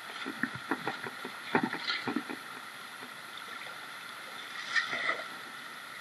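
River water running steadily, with a run of splashes and knocks in the first two seconds and another splash near the end.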